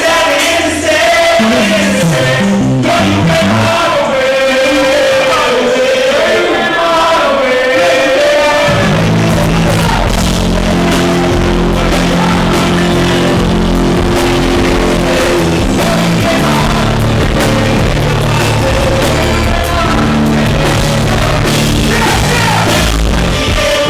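Live band music with vocals. About nine seconds in, the bass and the full low end of the band come in and carry on. The recording is loud and distorted, from a microphone overloaded by the venue's sound system.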